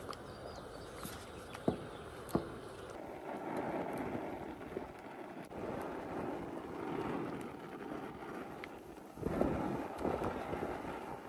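Wooden paddle stirring and mashing thick banku dough in an aluminium pot: soft squelching and scraping that comes in swells, with two light knocks about two seconds in.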